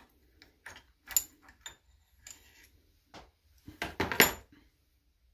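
Small metal valvetrain parts of a Kohler CH18 V-twin's cylinder head clinking and rattling as they are handled, a scatter of short clicks with a brief metallic ring, the loudest clinks about four seconds in.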